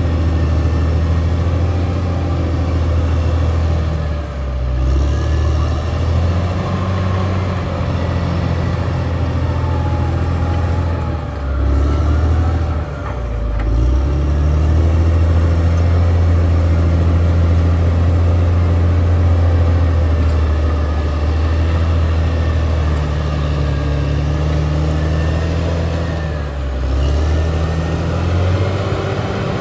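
Caterpillar D6R XL bulldozer's diesel engine running steadily under load, its pitch sagging briefly and recovering about four seconds in, again around twelve to fourteen seconds in, and near the end.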